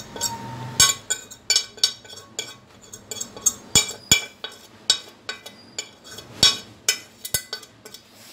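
A metal fork scraping and tapping against a china plate as ground turmeric is knocked off into a metal pot: quick, irregular clinks and scrapes, several a second.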